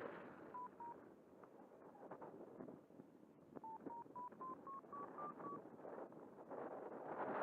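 Flight variometer beeping: two short beeps, then a quick run of eight about four a second that step upward in pitch, signalling the climb in lift. Faint wind rush on the microphone underneath.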